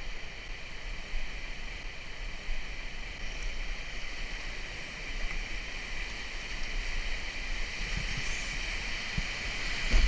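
Rushing whitewater of a high-water river rapid heard from a raft, with a low rumble underneath, growing a little louder near the end as the raft enters the rapid.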